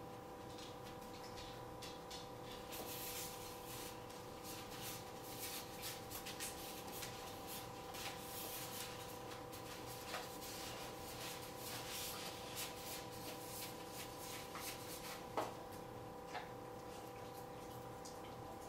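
Golden retriever chewing and nosing a cup on a tile floor: a long run of small crinkling, scraping and ticking sounds, with one sharper click late on.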